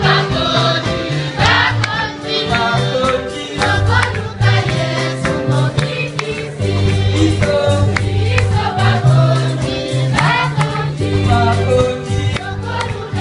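Youth choir singing a gospel song into microphones, with a low bass line sustained underneath and frequent short percussive hits.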